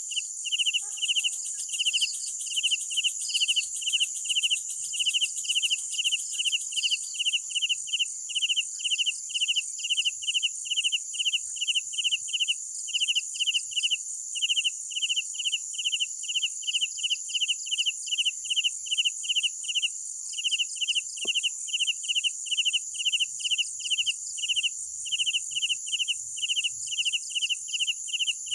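Crickets at night: one cricket chirping in a steady rhythm about twice a second, over a continuous high-pitched insect trill.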